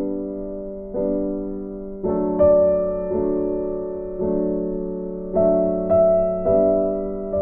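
Background music: soft electric piano chords, struck and left to fade, one after another.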